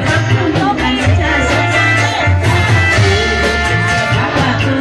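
A woman singing into a microphone over an amplified reog band from Indramayu, with steady, even drumming underneath.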